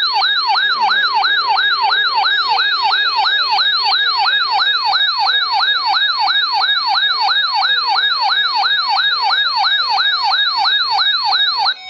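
Siren sounding a fast yelp, its pitch sweeping up and down about three times a second. It is steady and loud, and stops abruptly near the end.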